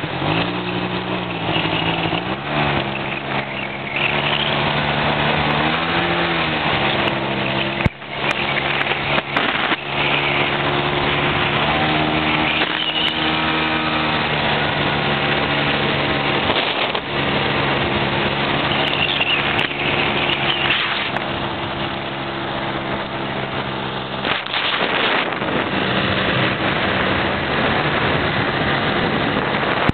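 ATV engine running under way, its pitch rising and falling repeatedly as the throttle is opened and eased, with a brief dip about eight seconds in.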